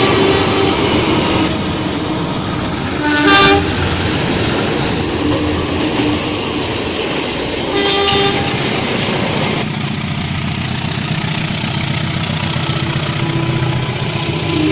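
Indonesian passenger train coaches rolling past with a steady rumble. A locomotive horn is fading out at the start, and there are two short horn toots, about three seconds in and again near eight seconds. These are the 'semboyan 35' horn signal. A new horn blast begins at the very end.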